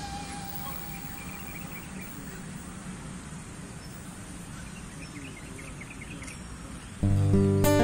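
Quiet outdoor ambience, a steady low background with clusters of faint high chirps, after a last music note fades out. Strummed acoustic guitar music comes in suddenly about seven seconds in.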